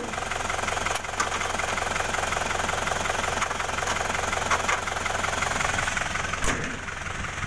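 Isuzu Panther's 2.5-litre diesel engine idling steadily. About six and a half seconds in, the bonnet is slammed shut with a single thud, and the engine sounds slightly quieter after that.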